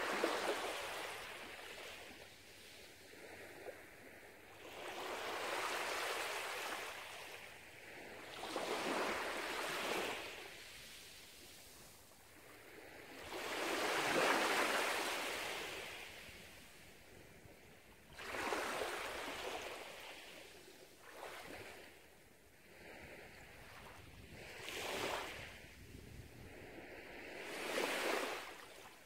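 Small waves on a calm sea lapping and washing up a sandy beach, each wash swelling and fading over a second or two, about seven in all.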